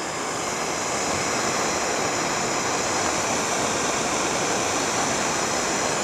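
Handheld gas torch burning with a steady rushing hiss, its flame played over the blades of pruning shears to sterilise them. It grows slightly louder about a second in.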